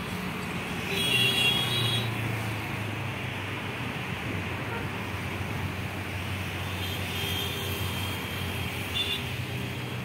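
Steady noise of road traffic, with a louder passing vehicle about a second in.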